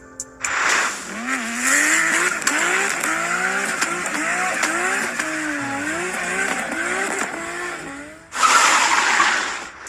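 Rally car engine revving hard, its pitch swinging quickly up and down over and over with throttle blips and shifts, followed near the end by a short burst of loud rushing noise.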